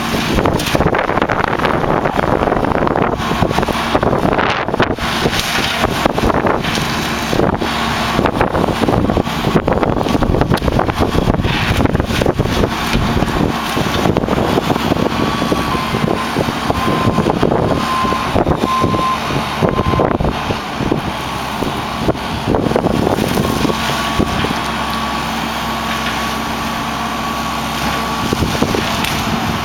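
John Deere 160D LC excavator running hard with an AFE mulcher head working, a steady diesel drone with a higher whine that comes and goes in the second half. Wind buffets the microphone.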